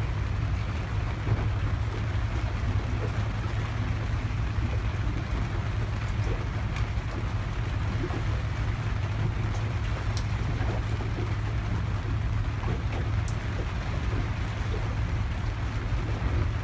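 Steady low drone of a boat's engine running at idle, under an even hiss of light rain falling on the sea.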